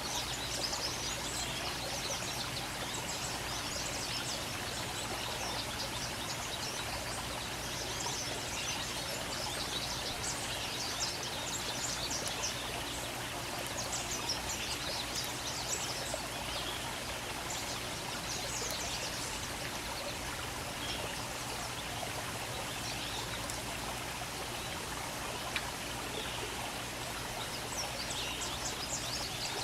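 Steady rush of running water, with clusters of quick, high chirps from small birds several times over it.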